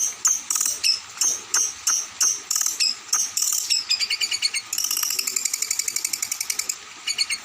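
A songbird's call from a bird-song training (masteran) recording: sharp, high notes repeated about three times a second, changing about four seconds in to a fast, chattering trill that breaks off briefly near the end.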